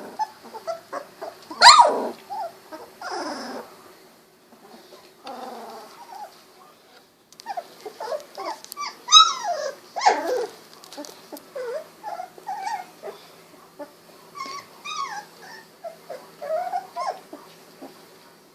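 Young Golden Retriever puppies, about two weeks old, making many short high-pitched calls that bend up and down in pitch, with small growls among them. The loudest cry comes near the start, and another burst of louder calls comes about halfway through.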